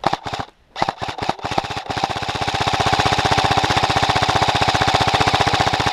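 Umarex HK416D electric airsoft rifle firing full-auto: a few short bursts, then one long continuous burst of about four seconds, its gearbox cycling in a rapid even rattle that stops abruptly.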